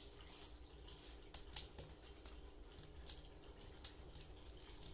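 Small wood fire crackling in a wood stove as it burns planer shavings and kindling: faint, irregular pops and crackles, the sharpest about a second and a half in.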